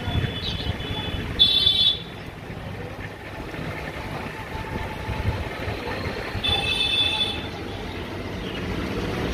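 Steady street traffic noise with two short, high-pitched vehicle horn toots, one about a second and a half in and another near seven seconds.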